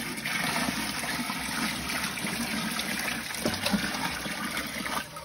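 Water poured from a 5-gallon bucket gushing and splashing into a water-filled sump pit, steady until the pour stops near the end.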